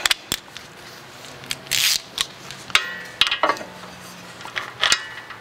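Hand ratchet and socket on the caliper bracket bolts: scattered sharp metallic clicks, a short scrape, and a briefly ringing metal clink about three seconds in.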